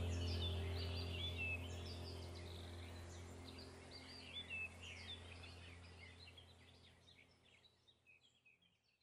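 Many small birds chirping and singing over a low steady hum, the whole ambience fading out gradually toward the end.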